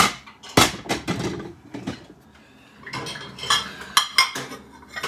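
Dishes and cutlery clattering and clinking as they are handled in a kitchen: a few sharp clatters in the first second, a brief lull, then a quick run of clinks in the second half.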